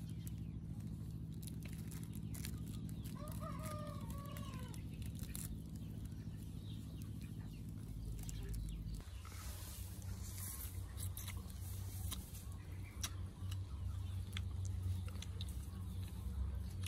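A rooster crowing once, about three seconds in, over scattered small clicks and crackles and a steady low hum.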